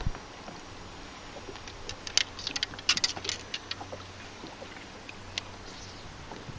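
Scattered light clicks and ticks from a baitcasting rod and reel being handled, bunched together about halfway through, over a steady low background rumble.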